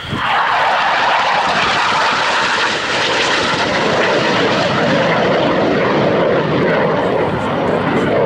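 BAE Systems Hawk 127 jet trainer's Rolls-Royce Turbomeca Adour turbofan, loud as the jet flies past. The noise swells in abruptly at the start and then holds steady, its pitch sinking slowly as it goes by.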